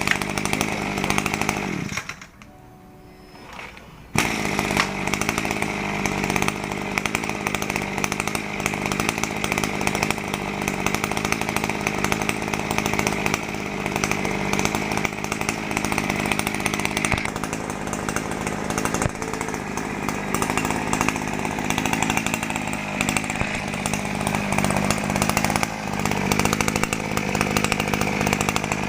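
RME260 brush cutter's petrol engine running at speed on test after repair; it drops away for about two seconds near the start, then picks up again and runs steadily.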